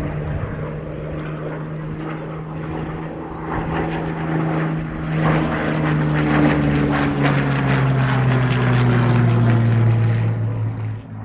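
Propeller-driven aircraft engine drone that grows louder, its pitch falling slowly through the second half.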